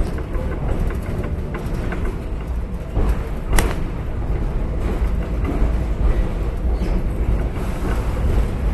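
Pacific Electric Hollywood Car PE 717 streetcar running along the track, heard from inside the car as a steady low rumble of wheels and motors. There is a sharp click about three and a half seconds in.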